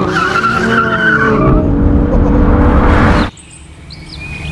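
Cars launching hard from a standing start in a drag race, a BMW i8 beside a red BMW coupe: engines revving with rising pitch and tyres squealing. The sound cuts off abruptly about three seconds in.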